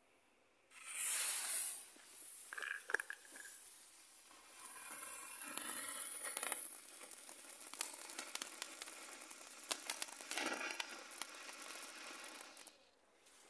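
Small silver-rain firework fountain burning, spraying sparks with a steady hiss and fine crackling. It starts about a second in after being lit and burns out near the end.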